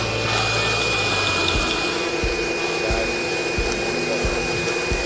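Shop vacuum running steadily, its hose sucking dirt and debris out from between an aircraft engine's cylinder cooling fins. Scattered low knocks sound under it.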